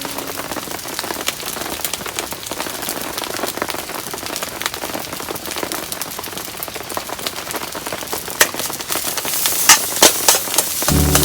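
Heavy rain falling steadily, a dense patter of drops, with a run of louder, sharper crackles near the end.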